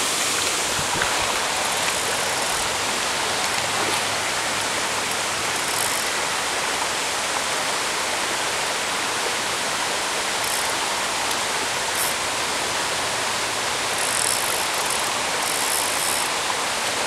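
Steady rush of river water flowing over and around rocks.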